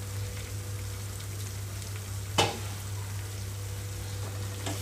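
Chopped onions with green chillies, garlic and curry leaves sizzling steadily in hot oil in a nonstick frying pan, softened after covered cooking on low flame, with one sharp pop about halfway through over a low steady hum.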